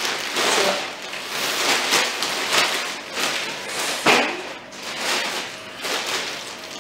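Thin plastic shopping bags crinkling and rustling as they are handled, in repeated crackly bursts, the loudest a little after four seconds in.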